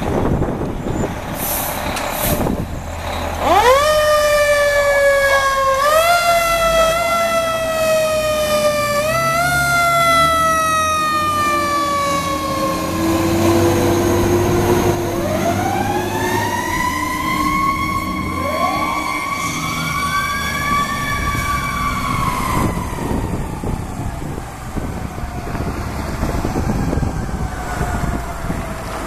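Fire engine siren: its pitch is wound up sharply several times, each time falling away slowly, then it changes to a slower wail that rises and falls, over the truck's engine rumble.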